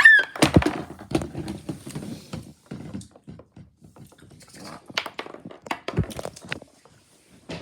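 Irregular taps, clicks and knocks of toys being handled and moved about on a hard surface, in a small room.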